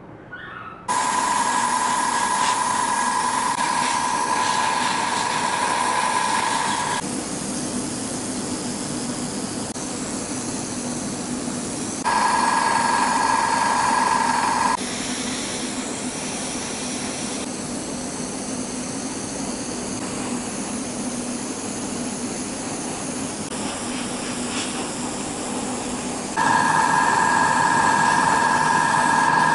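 Airbrush and compressor running: a steady hiss of air. In three louder stretches a steady high whine sounds over it, each starting and stopping abruptly, the last running on.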